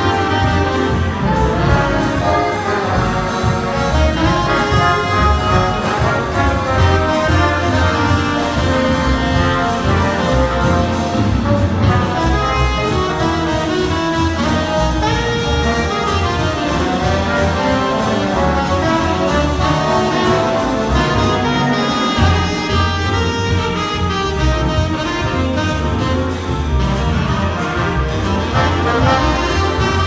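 Big band playing jazz live, with trumpets, trombones and saxophones over double bass and piano. The full ensemble plays steadily and loudly throughout.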